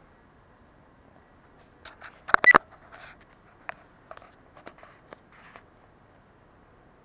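Handling noise: a quick burst of sharp clicks with a brief high beep about two and a half seconds in, followed by a few lighter clicks and short rustles.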